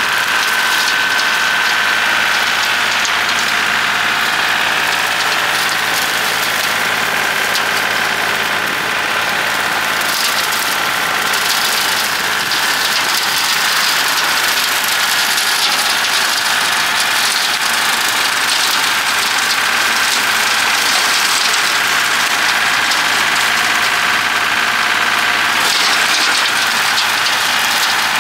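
John Deere 790 compact tractor's three-cylinder diesel running steadily with the Bush Hog rotary cutter turning. A higher hiss joins about ten seconds in and drops away again near the end.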